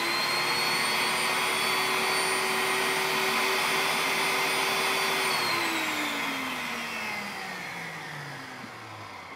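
Food processor motor whirring at full speed as its blade churns a thin liquid sauce, then winding down with a falling whine after about five seconds once it is switched off.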